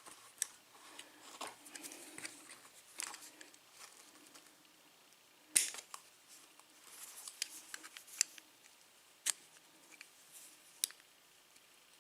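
A small tool working at the steel retaining clip on an Abus padlock's lock cylinder, giving scattered sharp metallic clicks and light scrapes. The loudest click comes about five and a half seconds in.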